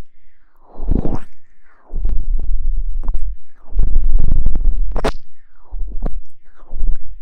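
Close-miked ASMR rubbing and scratching against the microphone, as in hair washing or rustling, in about four long strokes with a heavy low rumble.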